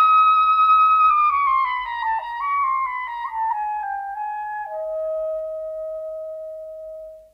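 A solo orchestral woodwind, flute-like in tone, plays a slow phrase that steps downward and settles on a long held note that fades away.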